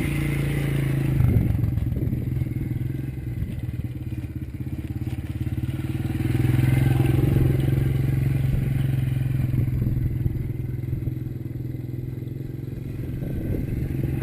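Freshly rebuilt Honda CRF70's small single-cylinder four-stroke engine running steadily, growing louder about six seconds in and easing off again after.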